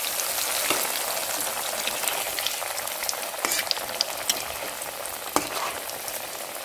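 Breaded bhetki fish chops deep-frying in hot oil in an aluminium kadai, just put in: a steady sizzle with scattered crackling pops, and a few sharp clicks of a metal spatula against the pan.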